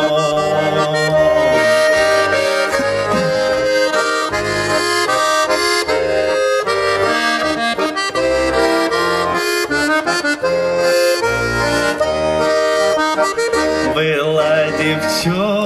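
Bayan (Russian chromatic button accordion) playing a solo instrumental passage: a sustained melody over rhythmic bass and chord notes on the left hand.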